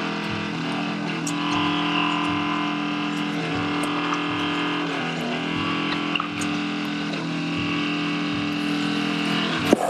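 An engine running steadily, its pitch stepping slightly a few times, with faint clicks and taps over it.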